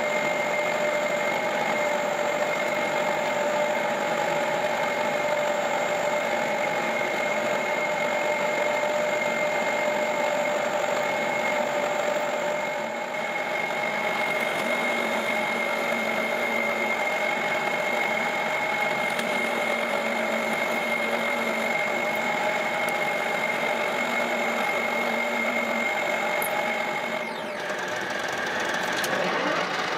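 Drill press running with a steady whine while its bit cuts into a small steel lathe chuck. Near the end the whine falls away in pitch and the sound of a metal lathe spinning the chuck takes over.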